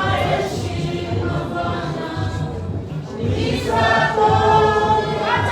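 Congregation and worship team singing a gospel song in Swahili over a steady beat, the voices swelling louder about three and a half seconds in.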